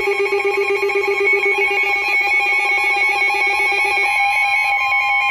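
Emergency Alert System alert tones from a NOAA Weather Radio broadcast: loud, buzzy electronic tones at several fixed pitches, pulsing and warbling quickly. About four seconds in they change to a steady single tone, the weather radio alarm tone.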